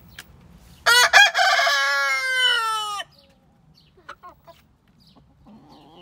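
Rooster crowing once, starting about a second in: a few short notes, then a long held note that sinks in pitch and cuts off about two seconds later. Afterwards, faint short clucks from the hens.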